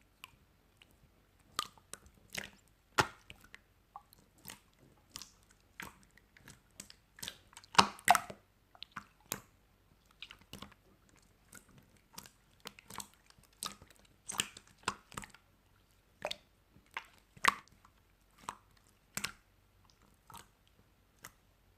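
Close-miked chewing and crunching of food, irregular sharp crunches a couple of times a second, with two loud crunches about eight seconds in.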